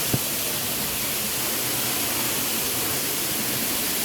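Steady rushing of a waterfall close by, an even roar of falling water. A brief low thump just after the start.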